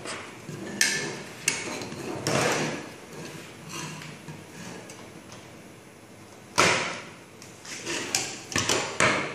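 Plastic security camera housings and cable plugs being handled on a tabletop: a series of sharp clicks and knocks with rustling between them, loudest about a second in and in a cluster near the end.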